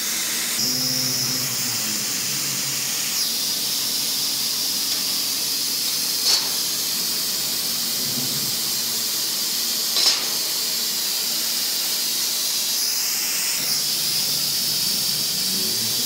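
Mixed laser cutting machine running, a steady high hiss of air, with two brief sharp clicks about six and ten seconds in.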